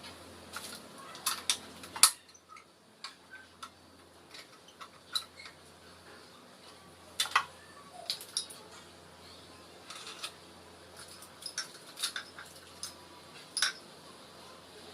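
Scattered clicks and light knocks of badminton string and racket being handled on a manual stringing machine as the string is threaded and set in place, the sharpest click about two seconds in.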